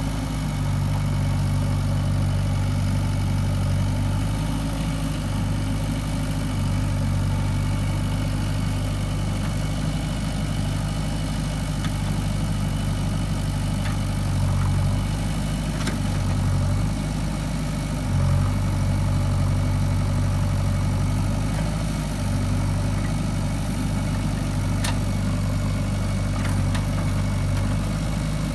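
Heavy diesel engine running steadily at an even speed, its low hum dipping briefly now and then, with a few faint clicks.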